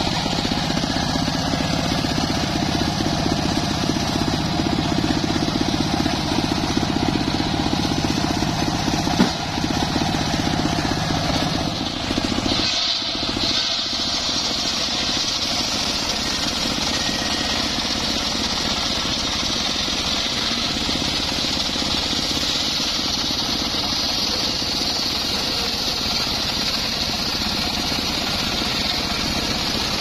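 Engine-driven homemade circular saw bench running steadily, its blade ripping lengthwise through an acacia log. There is a sharp knock about nine seconds in.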